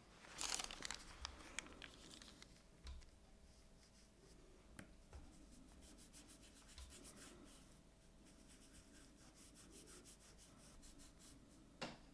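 Faint rubbing and scratching of tools and hands on paper while missing areas of a watercolour are infilled with Japanese paper and wheat starch paste. There is a brief louder scrape about half a second in, scattered light ticks, and a sharp click near the end.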